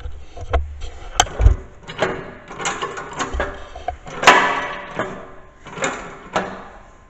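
Irregular knocks and short scrapes of hand work on snow plow mount hardware, the loudest a sharp knock about four seconds in.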